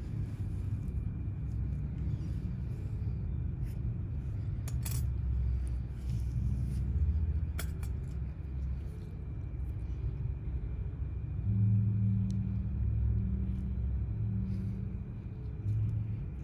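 Low steady background rumble and hum, with a faint steady high whine and a few light clicks.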